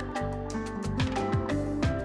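Background music: an instrumental track with melodic notes over a sustained bass line and a steady beat of about two drum hits a second.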